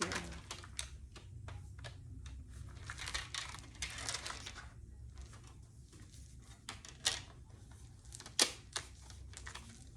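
Hard plastic snap-on case clicking and scraping against a MacBook Air as it is pressed and worked onto the laptop, with a stretch of rubbing a few seconds in and two sharp snaps later on. The case doesn't fit.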